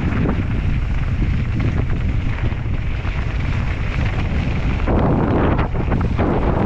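Wind buffeting an action camera's microphone over the rumble of mountain-bike tyres rolling fast down a loose gravel track. Brief louder bursts of gravel crunch and rattle come about five seconds in and again near the end.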